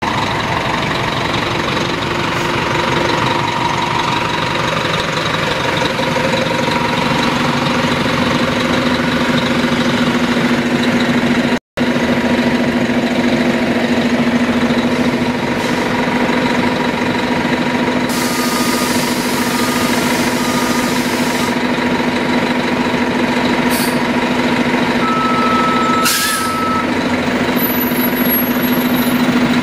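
1998 NovaBus RTS-06 transit bus running close by, a steady loud engine hum with a whine over it. About two-thirds through there is a hiss of air with three short beeps, and near the end one longer beep.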